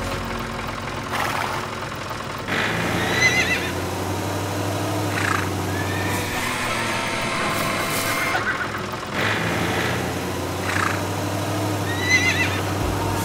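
Horses whinnying again and again, a call every second or two, over a tractor engine running with a steady low hum.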